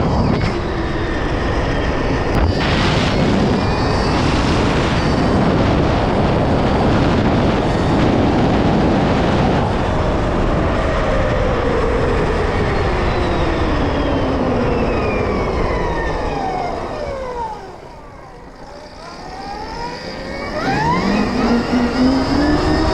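Stark Varg electric motocross bike being ridden: the electric motor's whine glides down in pitch as it slows, drops away briefly about three-quarters through, then rises steeply again as it accelerates, over a constant rushing noise.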